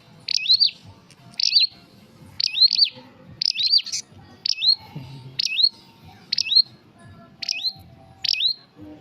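Prenjak (prinia) calling over and over, about once a second. Each call is a sharp high note followed by a quick rising whistle.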